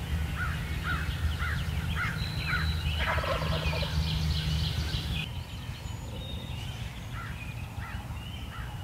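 Wild turkeys calling: a hen yelping in a steady series of short notes, about two a second, and a gobbler's rattling gobble about three seconds in. The yelping goes on more sparsely afterwards.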